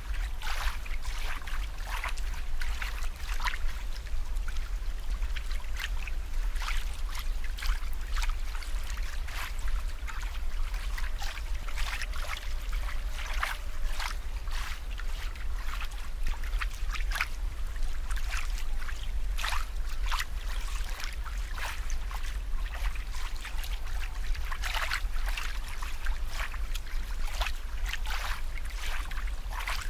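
Water trickling and bubbling, with quick irregular splashy pops, over a steady low hum.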